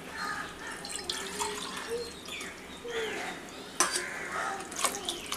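Coconut milk being poured from a measuring vessel into a pot of water, splashing steadily, with a couple of light knocks partway through.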